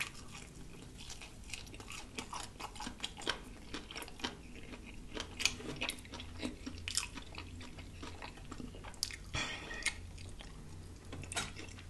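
Close-miked chewing and biting of fried chicken: irregular small wet smacks and crunches of the breading as the meat is picked off the bone and eaten.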